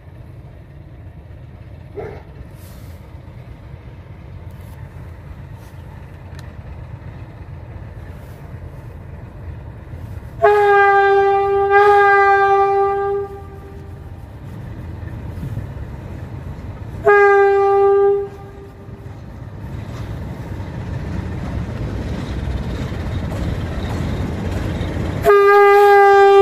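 CFR class 060-DA diesel-electric locomotive with its Sulzer 12-cylinder engine running, growing steadily louder as it approaches. It sounds its single-tone horn three times: a long blast of about three seconds about ten seconds in, a shorter blast of about a second and a half, and another starting near the end.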